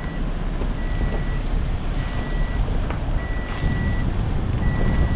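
A vehicle's electronic warning beeper sounds a steady high beep about every second and a quarter, over a loud, steady low vehicle rumble.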